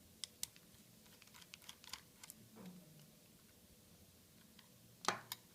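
Faint, irregular light clicks and taps of small metal parts being handled while mounting brackets are fitted to a new SSD, with one sharper click near the end.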